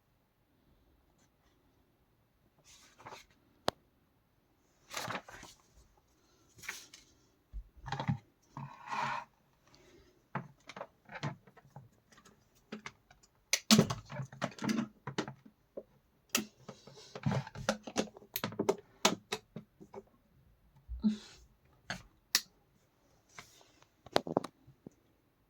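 Hands handling a plastic electric kettle: irregular sharp clicks and taps mixed with short rustles and scrapes.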